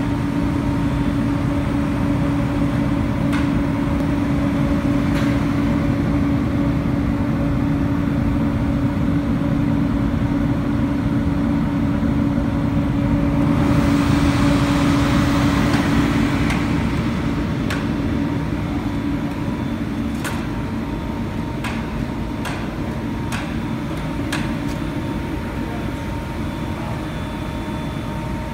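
MANN+HUMMEL ScandMist 200D oil mist separator running: a steady fan hum with a clear low tone and fainter higher tones. A rush of air rises for a few seconds around the middle, and the low tone fades soon after. A few sharp clicks sound now and then.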